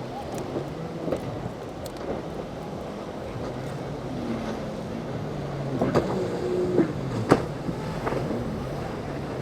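Boat engines running out on the water, their pitch rising and falling as the throttles change, with wind on the microphone. Two sharp knocks stand out about six and seven seconds in.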